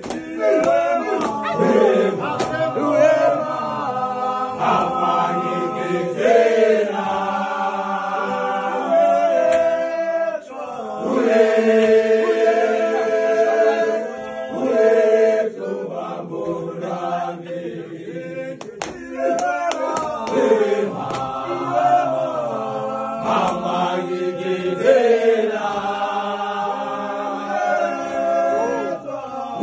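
A group of men singing a gwijo chant together in harmony, holding long notes, with a short break about ten seconds in.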